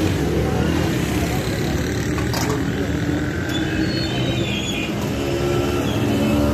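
Busy street noise: motor vehicle engines running steadily, mixed with background voices.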